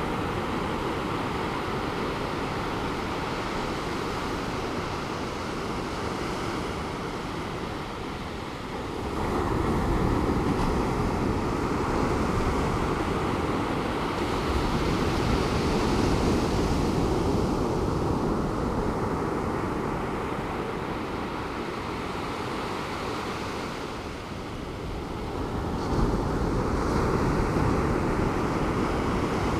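Pacific Ocean surf washing onto a beach, a steady rush of waves. It swells louder about nine seconds in and again near the end as larger waves break.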